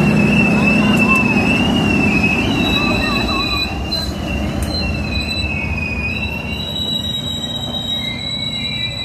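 Passenger train rolling past with a sustained, wavering high-pitched wheel squeal over a low rumble, the rumble slowly fading.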